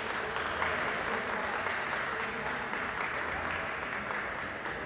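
Audience applauding at the end of a rally: a dense patter of handclaps that eases off near the end.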